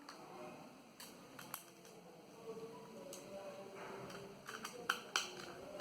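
Small screws being driven into a laptop drive caddy with a small screwdriver: faint handling, with light sharp clicks and taps that come more often and louder near the end.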